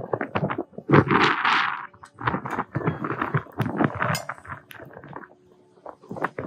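Wind buffeting the microphone on the open deck of a moving ferry, in irregular gusts, with a hissing rush about a second in.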